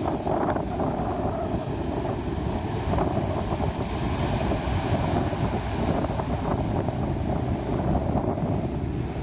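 Big ocean surf breaking, mixed with wind buffeting the microphone in a steady, noisy rush.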